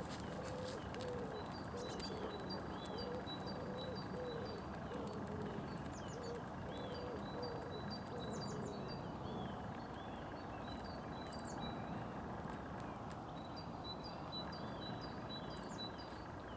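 Songbirds singing and calling: short high chirps repeating a couple of times a second, with a lower wavering call through the first several seconds, over a steady background hiss of open air.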